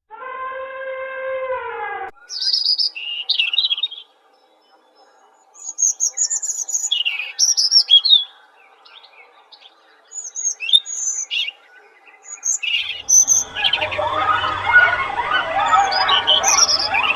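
A held, pitched call with a falling end for about two seconds. Then a songbird chirping in short, high calls, and about thirteen seconds in a dense layer of many overlapping calls comes in.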